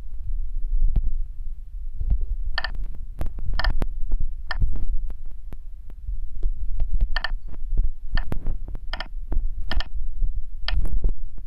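Taps on a phone's touchscreen keyboard while a G-code program is typed into a CNC simulator app: about eight short electronic key beeps, one per key press, roughly a second apart, over dull thumps of the fingers on the phone and a low rumble.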